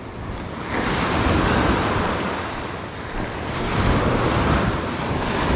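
Small surf breaking and washing up a sandy beach, swelling twice (about a second in and again around four seconds), with wind buffeting the microphone.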